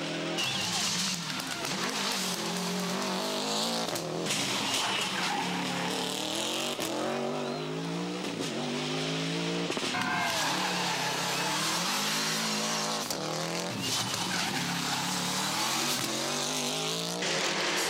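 Subaru Impreza rally cars' turbocharged flat-four engines revving hard on full throttle, the pitch climbing and dropping back again and again through gear changes, as several cars pass in turn. Some tyre squeal is mixed in.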